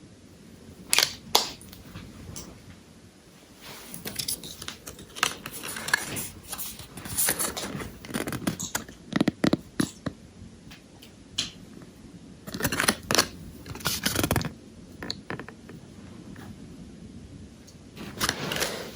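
A perfume box and its packaging being handled, with irregular rustling, scraping and sharp clicks, louder in several short spells.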